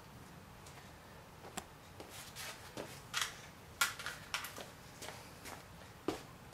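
Faint, irregular scuffs and light clicks from a person moving about on concrete and handling loose plastic tubing.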